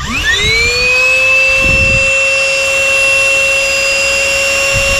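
Handheld portable car vacuum cleaner switched on: its motor spins up with a rising whine in the first half second, then runs at a steady high whine over a rush of air.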